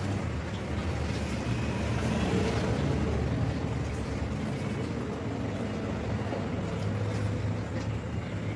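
Steady low rumble of a motor running in the background.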